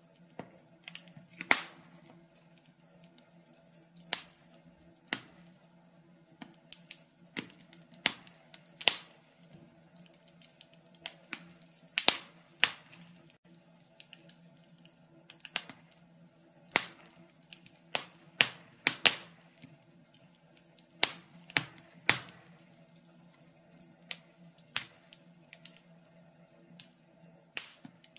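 Wood fire of burning logs crackling, with irregular sharp pops and snaps, a few of them much louder than the rest. A faint steady low hum runs underneath.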